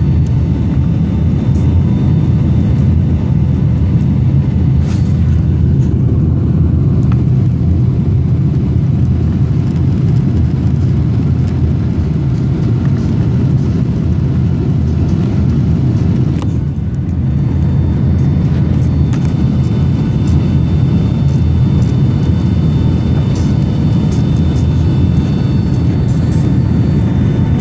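Cabin noise of a Boeing 757 landing: a steady low roar from the engines and airflow. The roar dips briefly about two-thirds of the way through as the jet settles onto the runway, and a thin high engine whine is heard after it.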